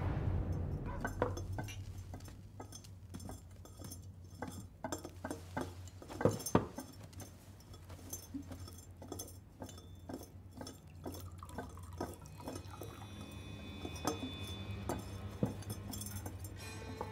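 Scattered light clinks and knocks of ceramic jars and tools being handled on a wooden table, with two louder knocks about six seconds in, over a low steady hum.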